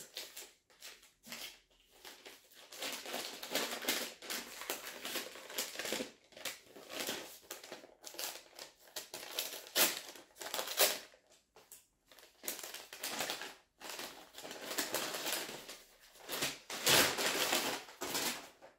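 Brown kraft paper bag crinkling and rustling in irregular bursts as it is handled, unsealed and opened by hand, with a louder stretch of rustling near the end.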